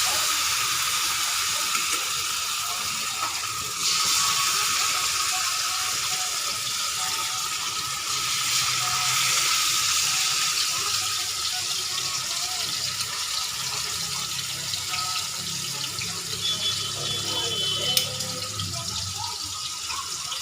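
Marinated fish sizzling as it shallow-fries in hot oil, a steady loud sizzle that swells about four seconds in and again about eight seconds in, then slowly eases. A sharp tick sounds near the end.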